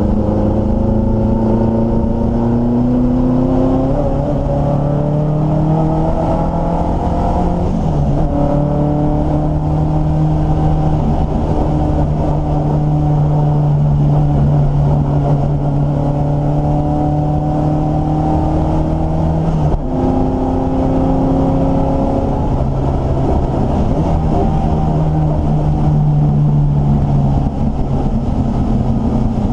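Triumph Dolomite Sprint race car's slant-four engine, heard from inside the cabin, driven hard around a circuit: the pitch climbs under acceleration and drops sharply at gear changes about four, eight and twenty seconds in, holding fairly steady through the long stretch in between.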